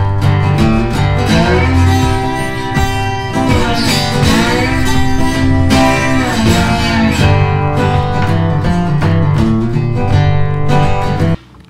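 Background music led by strummed acoustic guitar, with a country feel; it cuts off sharply just before the end.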